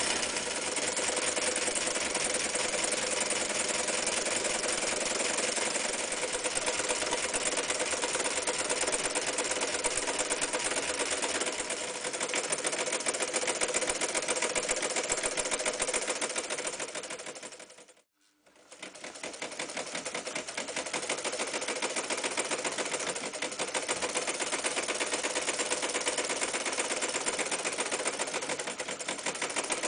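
Restored old electric sewing machine running at a fast, even stitch rate, sewing through several thick layers of denim. It stops briefly a little past halfway, then starts sewing again.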